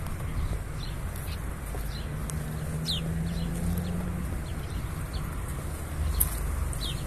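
Small birds chirping in the trees: scattered short, high, falling calls and ticks, over a steady low rumble. A low steady hum comes in from about two to four seconds.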